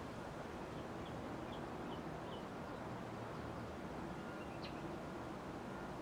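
Scotty's Hardware Bellaire 36-inch ceiling fan running with a steady hum. A few faint, short bird chirps come through in the background.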